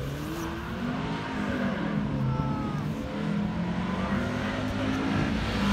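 Classic sports car's engine under hard acceleration on a hill-climb course, its pitch rising and falling through the gears and growing louder as the car approaches.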